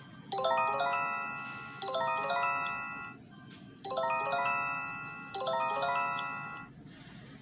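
Emergency alert alarm tone: four bright chimes, each a quick rising run of bell-like notes that rings out. They come as two pairs with a short pause between.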